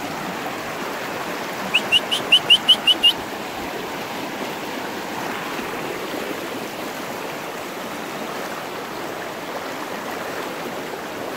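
Shallow, rocky river rushing steadily over stones. About two seconds in, a quick run of about nine short, high, rising chirps.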